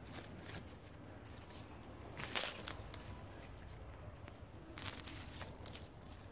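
Chili pepper plant leaves rustling and rubbing against the phone, with two short crackly bursts, about two seconds in and again near five seconds.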